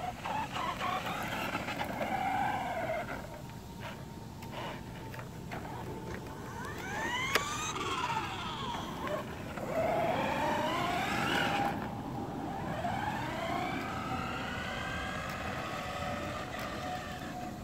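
Motors of radio-controlled on-road cars whining as they race, the pitch rising and falling over and over as the cars speed up and slow down. There is a sharp click about seven seconds in.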